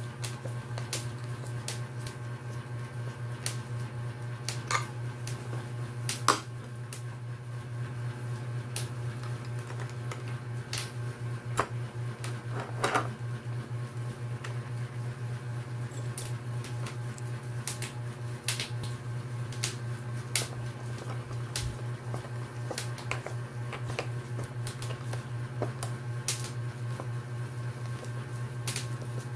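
Scattered clicks and taps of metal hardware as a tattoo armrest is assembled by hand: a screwdriver turning bolts on the steel mounting plate and a metal rod being fitted, with a couple of louder knocks. A steady low hum runs underneath.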